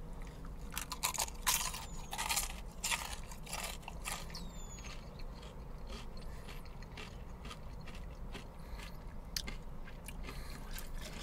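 A person biting into and chewing crispy breaded fried chicken: a run of crunches in the first few seconds, then quieter chewing with scattered clicks.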